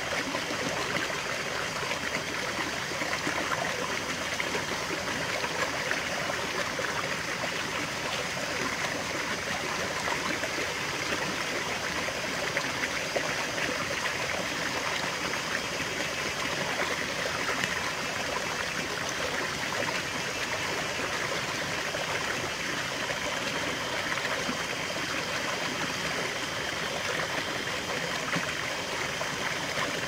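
A small mountain stream spilling over rocks in a low cascade into a shallow pool: a steady splashing rush of running water.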